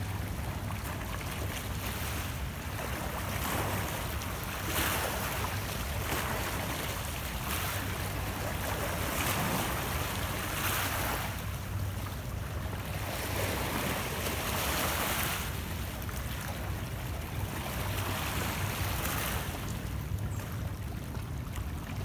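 Small lake waves washing against shoreline rocks, a soft rush of water swelling up every couple of seconds, over a low steady rumble.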